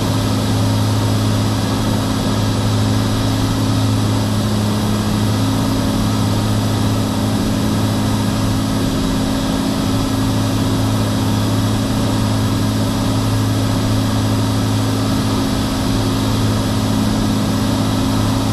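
Steady drone of a Cirrus SR22's six-cylinder piston engine and propeller in level cruise, heard from inside the cabin, with an even low hum that holds constant.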